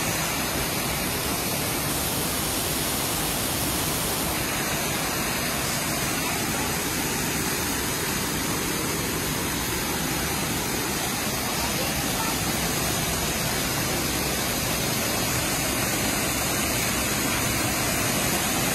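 Waterfall pouring into its plunge pool: a steady, even rush of falling water. Its high hiss drops slightly about four seconds in.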